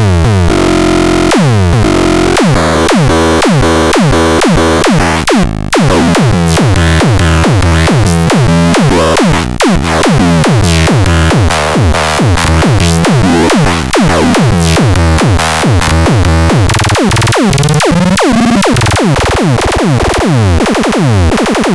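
Electronic synthesizer music from the Grove Machine C 202: a loud, steady pattern of repeated falling-pitch synth hits, a few per second, that grow denser in the last few seconds.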